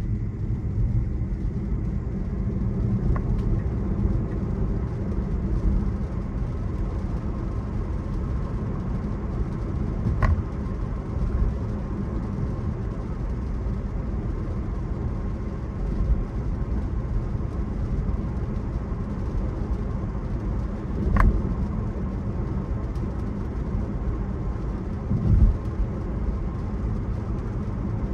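Steady road and tyre noise inside a Tesla's cabin as it drives on a wet road, a low rumble with no engine note. Two sharp clicks come about ten seconds apart, and a low thump comes near the end.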